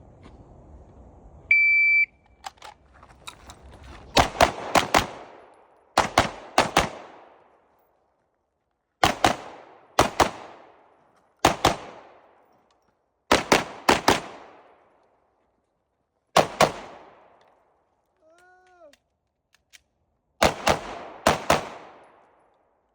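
A shot timer's start beep, then a Glock 19 pistol fired in quick strings of two to four shots, about eight strings with short pauses between them. The last shot lands about twenty seconds after the beep, a 20.0-second run on the timer.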